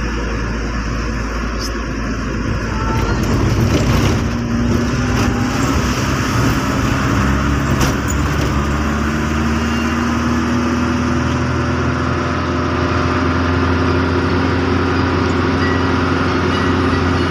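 Car engine and road noise heard from inside the cabin while driving. The engine note steps up about three to four seconds in and then climbs slowly and steadily.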